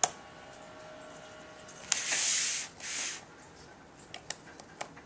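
Small metallic clicks and ticks of a screwdriver working the tiny screws of a pre-unibody MacBook Pro's aluminium RAM cover. About two seconds in come two short hissing scrapes, the first the loudest sound here.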